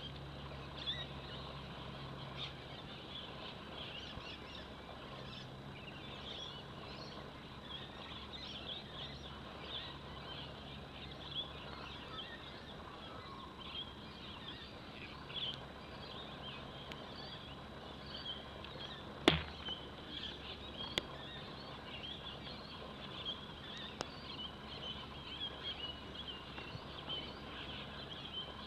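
Open-air ambience full of small birds chirping steadily, with a faint low hum coming and going. A single sharp click stands out about two-thirds of the way through, with a couple of fainter ticks after it.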